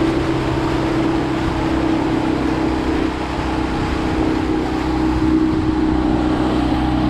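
Tohatsu outboard motor driving a small open motorboat at steady cruising speed, its even engine note running over a steady rush of water and air.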